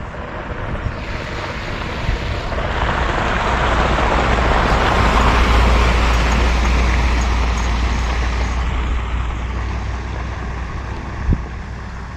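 A motor vehicle passing by on a road, its tyre and engine noise growing louder to a peak about halfway through, then fading away.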